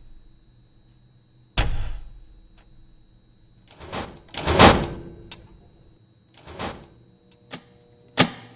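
Cinematic sound-effect hits for title and credit cards. A sudden deep boom about a second and a half in dies away, a noisy swell peaks just before the five-second mark, and a few sharper hits follow.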